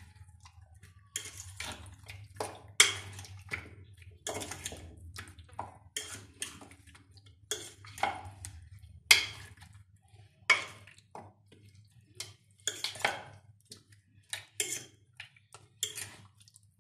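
Raw chicken pieces being mixed by hand in a yogurt-spice marinade in a bowl: irregular clacks and knocks as the meat and fingers hit the bowl, over a steady low hum.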